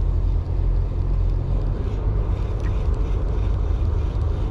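Steady low rumble of a ship's engine running, even throughout.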